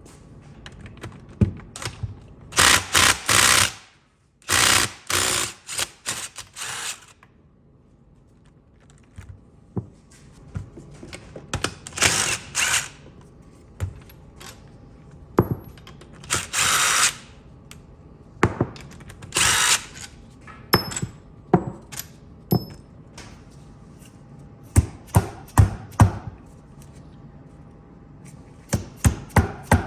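Power tool run in short bursts of about a second each, spinning bolts out of a Muncie M21 four-speed transmission's rear housing, with metal clinks and knocks between the bursts.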